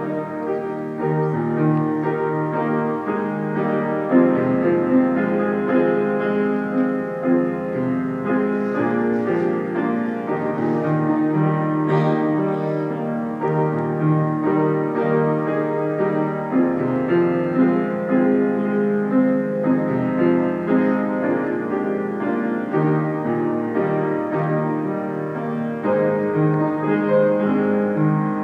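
Piano playing a slow piece in held chords.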